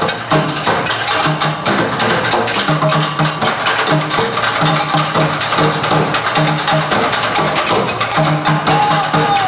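Percussion music played on recycled workshop objects: a fast, dense rhythm of sharp knocks and clicks over short low notes that repeat in a steady pattern.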